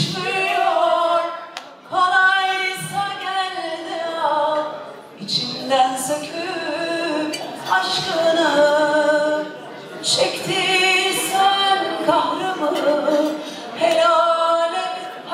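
A woman singing a slow song unaccompanied into a handheld microphone, long held notes with a wavering vibrato and short breaks between phrases.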